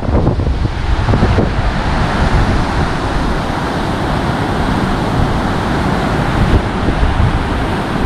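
Strong wind buffeting the microphone: a loud, steady rushing noise, heaviest in the low end.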